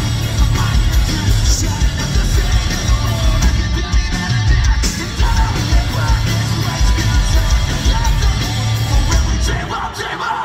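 Punk rock band playing live and loud: electric guitar, bass guitar and drums with shouted vocals, heard from the crowd in a large hall.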